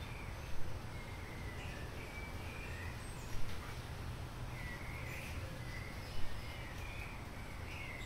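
Outdoor bird calls: many faint short chirps, with a louder short sound three times, about three seconds apart, over a steady low hum.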